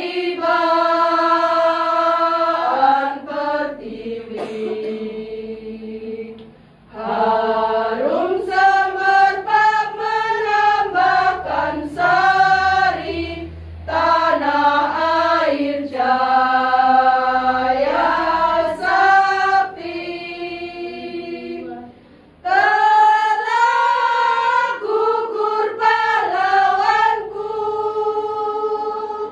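Women's choir singing, voices only, in long held phrases with short breaks about seven and twenty-two seconds in.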